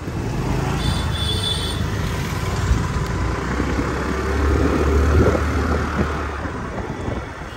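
Riding on a motorcycle: the engine runs with road and wind noise. A brief high-pitched tone sounds about a second in, and a louder low rumble swells about two-thirds of the way through, then fades.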